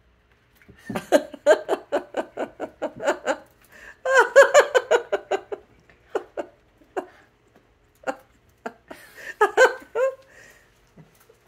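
High-pitched laughter in quick rhythmic bursts of about five a second, in three fits with a few single giggles between.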